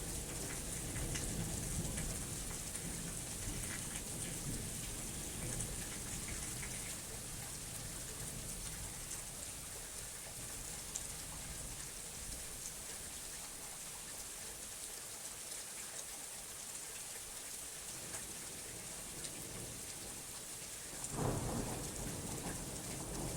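Steady rain hiss throughout a thunderstorm. Low thunder rumbles away and fades over the first several seconds, and a fresh roll of thunder starts near the end.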